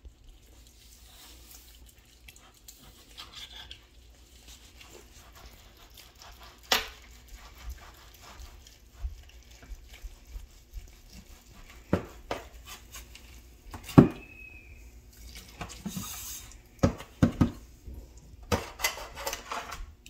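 A knife cutting a baked ham in a metal pan. Irregular clinks, knocks and scrapes of metal on the pan, the loudest about two-thirds through, with several coming close together near the end.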